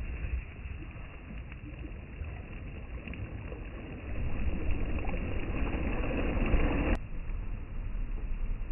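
Sea waves washing with wind noise, swelling for a few seconds and then cut off abruptly about seven seconds in.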